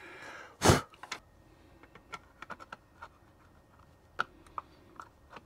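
Small plastic clicks and taps as a NanoVNA is handled and tried in a 3D-printed plastic case, with one louder knock just under a second in.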